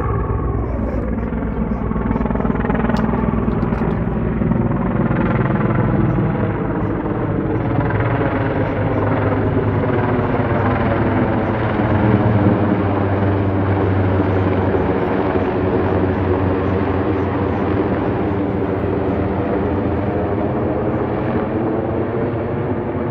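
Mil Mi-26 heavy-lift helicopter flying overhead, its eight-blade rotor and turbines making a loud, steady drone. The pitch drops slightly in the first second, and the sound is loudest about halfway through as it passes over.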